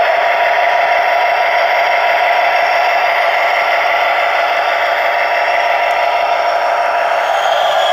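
Bachmann HO-scale SD70ACe's Sound Value decoder playing diesel engine sound through the model's small onboard speaker, running at a steady pitch as the locomotive rolls along the track.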